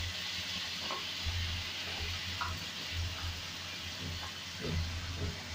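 Cut eggplant and potato pieces sizzling in hot oil in a kadhai, a steady hiss with a low hum underneath.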